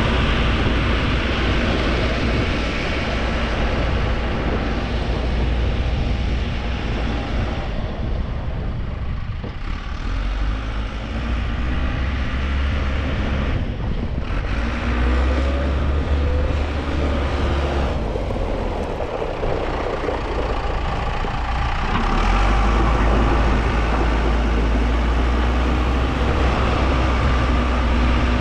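Truck engine running with a heavy, steady low rumble that eases off twice and comes back stronger near the end.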